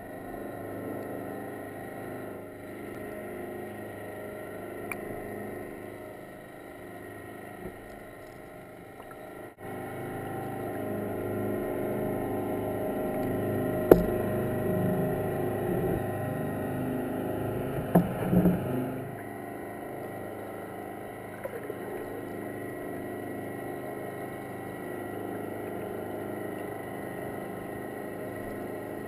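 Steady drone of a prawn trawler's engine and propeller heard through the water, a hum of several steady tones that swells for a while in the middle. Two sharp knocks stand out, about halfway and a few seconds later.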